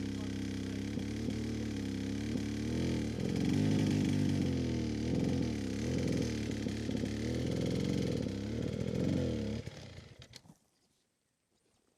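Two-stroke 250 cc dirt bike engine idling, then blipped up and down several times with the throttle, and cutting out about ten seconds in.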